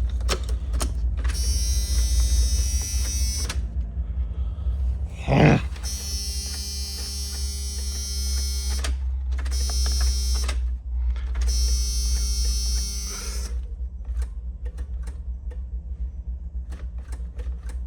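Box truck's dashboard warning buzzer sounding in four bursts of a few seconds each as the ignition key is turned, with no cranking: the starter does not engage from the key. Scattered clicks, one short loud sound about five seconds in, and a steady low rumble underneath.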